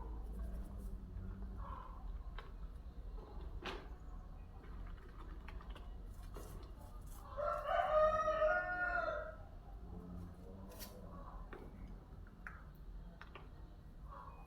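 A single long bird call lasting about two seconds, about halfway through, rising slightly at the start and falling away at the end, with faint scattered clicks around it.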